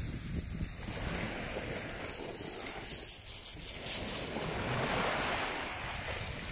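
Small sea waves washing in at the water's edge, with wind buffeting the microphone.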